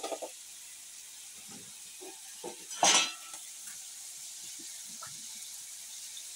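Sucking snails (siput sedut) sizzling steadily in sweet soy sauce in a frying pan, with faint small knocks and one brief loud clatter about three seconds in.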